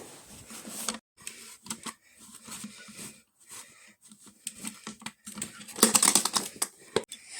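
Handling noises of packing clothes into a suitcase: irregular rustles and clicks, with the loudest stretch a dense run of rapid clicks about six seconds in.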